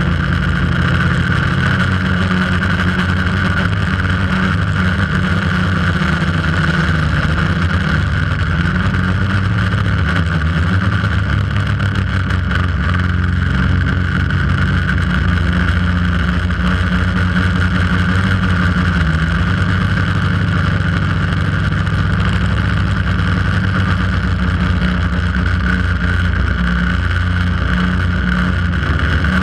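Quadcopter's electric motors and propellers running with a steady, loud buzz, picked up by the GoPro mounted on the drone itself; the pitch shifts slightly now and then as it manoeuvres.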